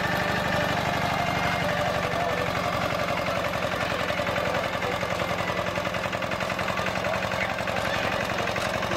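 Old farm tractor's engine running steadily close by, a rapid, even chugging.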